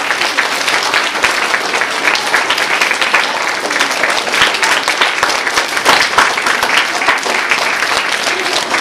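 Audience of schoolchildren applauding: dense, steady clapping from many hands.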